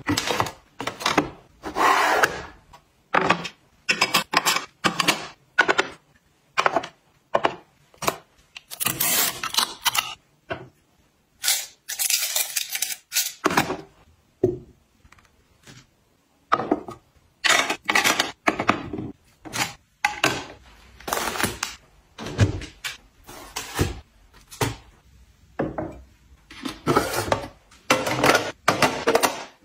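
Hard plastic desk organizers and stationery being handled and set down into plastic trays: a run of light clacks and taps, with a few longer sliding noises in between.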